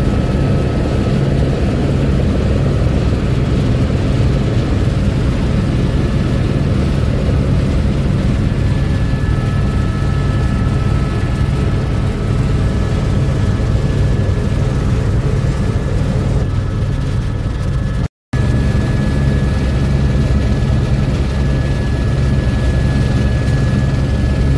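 Helicopter rotor and engine noise heard from inside the cabin: a loud, steady drone with a faint high whine above it. It breaks off for a split second about eighteen seconds in.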